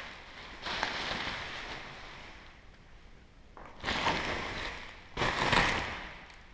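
Bubble wrap and plastic packing rustling and crinkling as a hand pulls it out of a cardboard box, in three bursts.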